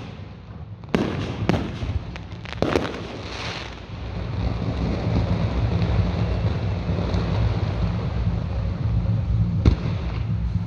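Fireworks going off: three sharp bangs in the first three seconds, then a steady low rumble with one more bang near the end.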